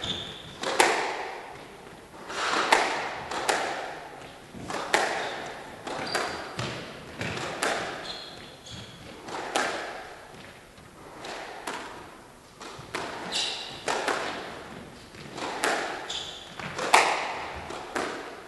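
Squash rally: the ball cracks off rackets and slams into the court walls about every second or two. Short high squeaks come from players' shoes on the wooden court floor.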